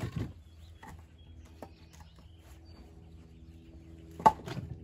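Split oak firewood knocking and clattering as pieces are set into a stack inside a wire-caged tote, with a few sharp knocks and the loudest one about four seconds in. A steady low hum runs underneath.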